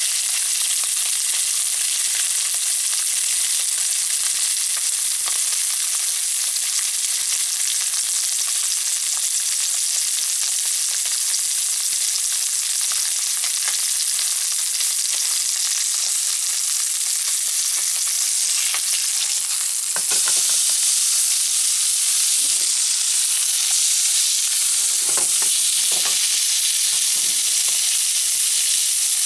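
Scored pork belly strip sizzling and spitting in hot fat in a nonstick frying pan. About two-thirds of the way through the sizzle grows a little louder, with a few brief knocks as the meat is turned over.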